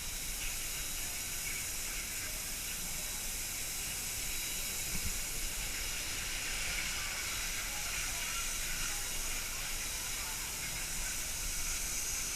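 Steady rushing hiss of water flowing down a water slide, even throughout, with faint voices underneath.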